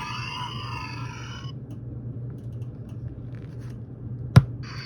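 Electronic sound effects from a Tron disc replica's built-in sound module: a warbling mesh of sweeping tones that stops about a second and a half in. A sharp click comes near the end, and another effect starts right after it. A steady low hum runs underneath.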